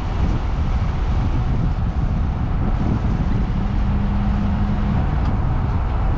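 Car driving, its engine and road rumble steady, with wind buffeting the microphone. A steady low hum sounds for a little over a second just past the middle.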